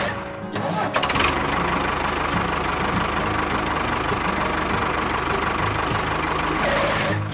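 Tractor-type engine running steadily at idle, with a short drop in level just after the start and a sharp click about a second in.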